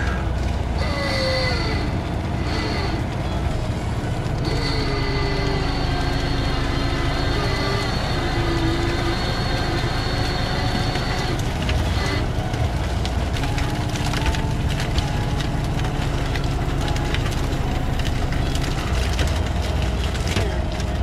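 A purse seiner's engine and hydraulic deck gear run steadily, with a whine that glides up and down in pitch as the salmon-filled seine bunt is hoisted aboard. Scattered knocks and creaks of the gear and net come through it.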